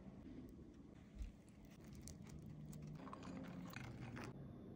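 Faint handling sounds of a sandwich being put together: soft taps and clicks of a spoon and bun against the plate, with a low thump about a second in.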